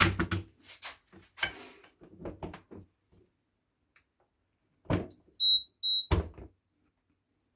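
Knocks and clicks of the Silvercrest electric kettle being handled, then two short, high electronic beeps about half a second apart from the kettle's control, a sign that the repaired kettle is getting power again, followed by another knock.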